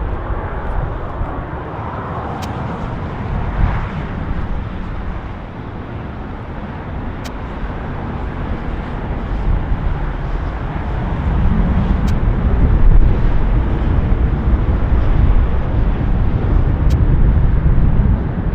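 Boeing 767-300ER's jet engines at taxi power heard from a distance, a steady noisy rumble that grows louder about eleven seconds in as the airliner taxis closer.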